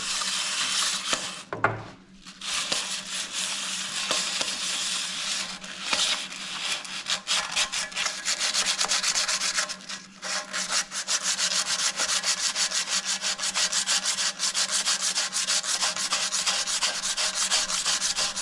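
Sandpaper rubbed rapidly back and forth over a Honda Gold Wing GL1500's front brake disc, scuffing the disc surface to remove any glazing. The sanding breaks off briefly about two seconds in and again about ten seconds in.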